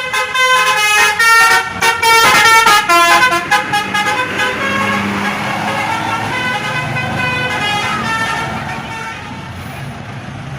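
Bus telolet 'basuri' musical horn playing a quick melody of short stepped notes, loudest in the first four seconds, then fainter notes trailing off over the bus engine and street noise.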